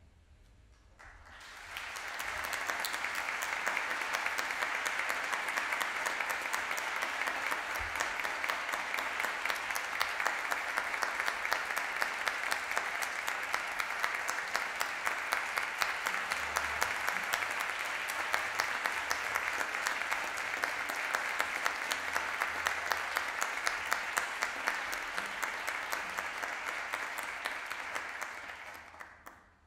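Audience applause: many people clapping steadily, starting about a second in and dying away near the end.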